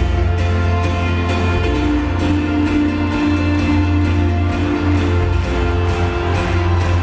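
Loud live band music through an arena PA, recorded from within the crowd: strummed acoustic guitar over a heavy, booming upright double bass, with a steady beat throughout.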